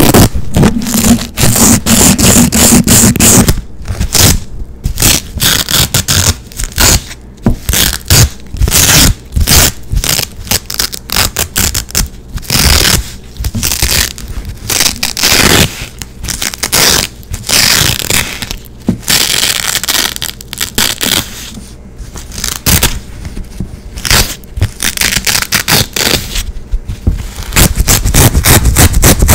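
Black hook-and-loop (Velcro) straps ripped apart over and over close to the microphone: fast, scratchy tearing rips, some short and some drawn out over a second or more, with brief gaps between them.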